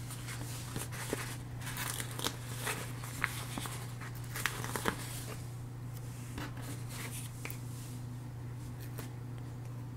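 Paper crinkling and tearing as small stickers are peeled off a sticker sheet and pressed onto a paper planner page, with many short crackles and taps in the first half that thin out later. A steady low hum runs underneath.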